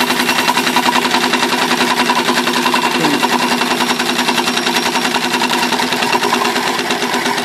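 Small vertical steam engine running steadily at speed under steam, its exhaust and moving parts giving a fast, even beat.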